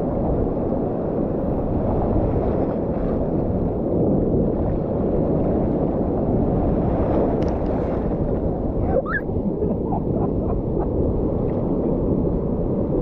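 Heavy rushing of surf and wind on the microphone, a steady low muffled roar of breaking waves, with a few faint high squeaks about nine seconds in.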